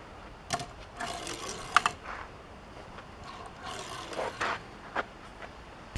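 Scattered handling noises: short scrapes and rubs with a few sharp clicks.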